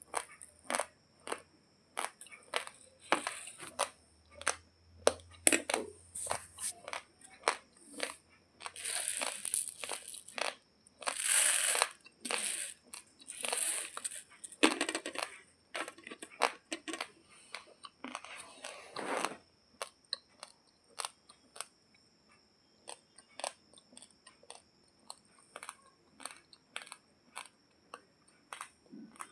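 Raw, uncooked basmati rice being crunched and chewed close to the microphone: a fast run of sharp crunches. Over the first two-thirds, longer rustles of the dry rice and its foil packet being handled break in among the crunches, and after that only the crunching goes on, a little sparser.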